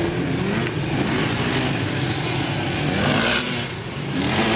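Small dirt bike and quad engines running and revving, their pitch rising and falling as the riders ride across sand.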